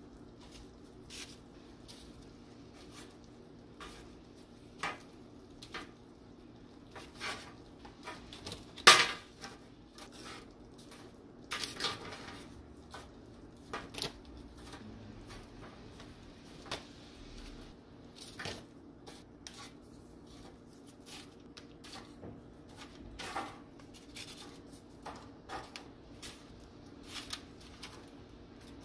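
Tortilla chip scoops being set down one by one on parchment-lined metal baking trays: scattered light taps and paper rustles, with one sharper click about nine seconds in.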